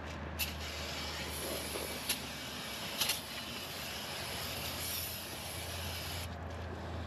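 Aerosol spray cleaner hissing in one long burst of about six seconds onto the face of a new brake rotor, washing off its shipping oil, then cutting off suddenly near the end. A few light ticks sound during the spray.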